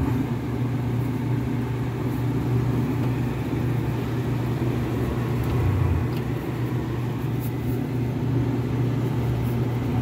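Carrier gas furnace running, a steady low hum from the draft inducer motor and the lit burners. The inducer is drawing a draft through the burner compartment that pulls on the cover held over it.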